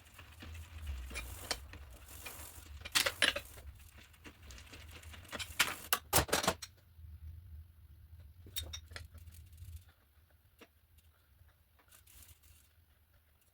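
Metal pedals and a hand tool being handled while the pedals are fitted to a BMX bike: irregular metallic clicks and clinks, with louder clattering bursts about three seconds in and again around six seconds in.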